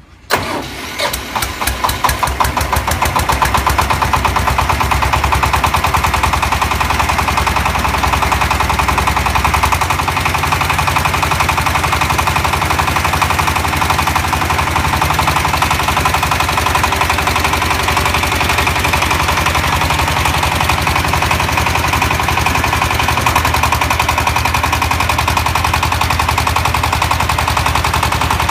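Concrete mixer truck engine starting and then running steadily with a rapid clatter, powering the hydraulic drive that turns the 3 m³ mixing drum. The pulses are uneven for the first couple of seconds, then even out, and the low hum shifts in pitch about ten seconds in.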